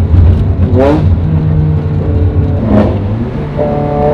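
Ferrari 360 Challenge race car's V8, running through straight pipes. Its revs rise in short blips about a second in and again near three seconds, then its note climbs steadily as it accelerates near the end.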